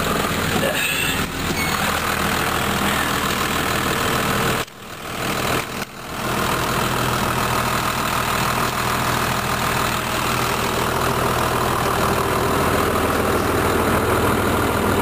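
Snowmobile trail groomer's engine idling steadily, with the sound briefly dropping away twice about five and six seconds in.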